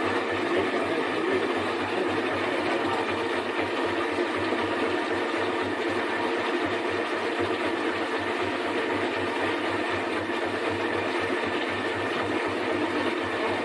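Coffee cherry pulping machine running steadily, a constant mechanical hum as the cherries are milled to strip off the skins.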